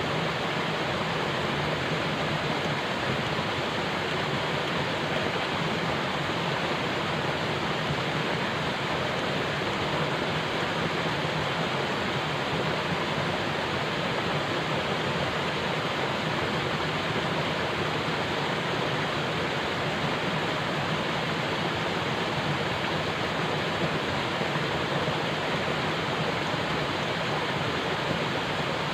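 Falling water making a steady, even rush that does not change.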